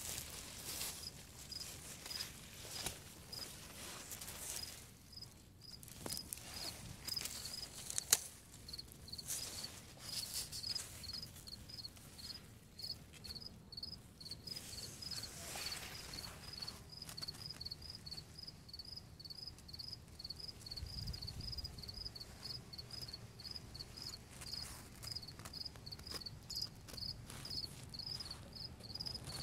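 A cricket chirping steadily, a short high chirp repeated about two to three times a second. Scattered rustling and handling bumps come through over it, with one sharp tap about eight seconds in.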